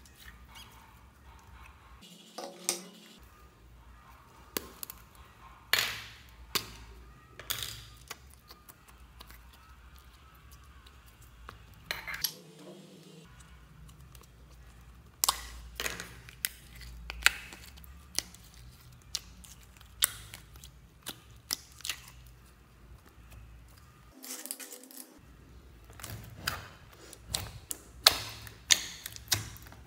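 Slime being squished, pressed and pulled apart by hand in a plastic tub: irregular sticky clicks and pops, with a few sharper plastic clicks from a small slime container being handled.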